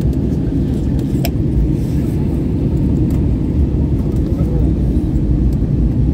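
Cabin noise of an Airbus A320 on descent: a steady, loud, low rumble of engines and airflow heard from inside the cabin, with one brief click about a second in.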